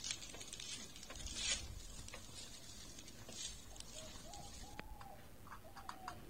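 Wooden spatula stirring and tossing cooked rice in a metal pan: faint scattered scrapes and light taps, a few of them a little louder.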